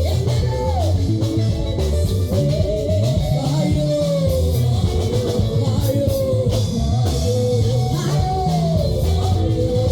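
Congolese seben dance music: a lead guitar line sliding and repeating over steady bass and drums.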